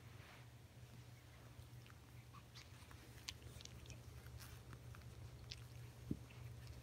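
Faint scuffling and small clicks of puppies scrambling over a lap and nibbling at clothing, over a low steady hum.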